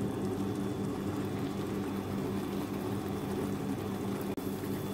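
A steady low mechanical hum made of several even, unchanging tones, as of a small motor running.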